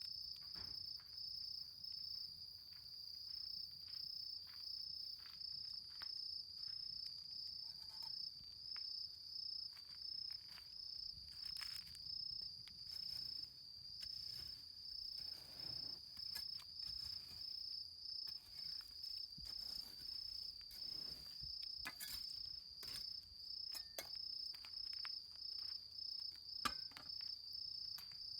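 Autumn insects calling in a steady, high, evenly pulsing chorus, with faint scattered crackles from smouldering campfire embers and one sharper pop near the end.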